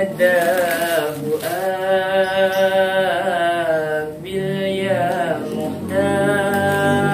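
Unaccompanied voice singing a sholawat, an Islamic devotional song, in long drawn-out notes that waver and slide between pitches, with short breaks for breath about a second in and about four seconds in.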